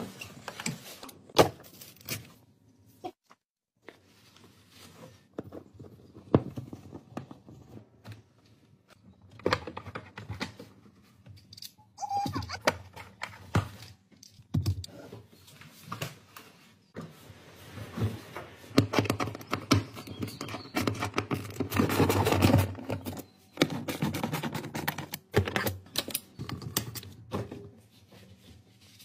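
Irregular clicks, knocks and rubbing from hands handling the plastic interior trim panels and clips of a Porsche convertible, busier and louder about two-thirds of the way through.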